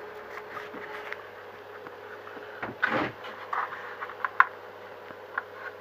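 Small clicks and taps of parts and tools being handled on a workbench, with a short rustling scrape about three seconds in, over a steady hum.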